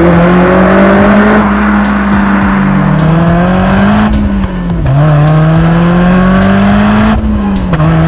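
Honda S2000's 2.2-litre four-cylinder engine through an ASM I.S.Design aftermarket silencer kit, pulling hard with its exhaust note climbing steadily in pitch. The note drops back sharply about four seconds in, climbs again, and drops once more near the end.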